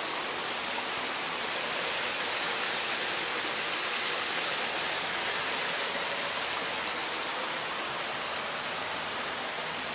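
Rocky mountain trout stream running over boulders and a small cascade: a steady, even rush of water.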